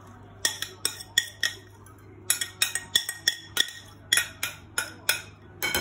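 Metal spoon clinking and scraping against bowls as steamed, chopped cauliflower is tipped from a bowl into a glass mixing bowl. A few sharp clinks come first, then a quicker run of about three a second from around two seconds in.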